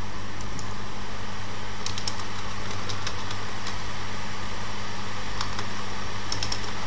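Steady low electrical hum with hiss, with a few scattered computer keyboard keystrokes as a word is typed.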